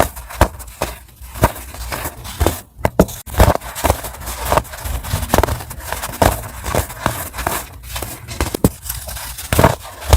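Chunks of compressed baking soda snapping and crunching as they are crushed: an irregular run of sharp cracks, with a brief pause a little before three seconds in.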